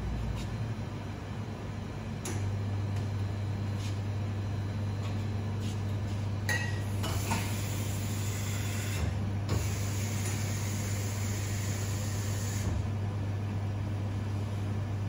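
Espresso machine's pump starts about two seconds in and runs with a steady low hum after its buttons are pressed, as part of a cleaning cycle. Water hisses through the machine in two spells of a few seconds each around the middle, with a few sharp clicks just before.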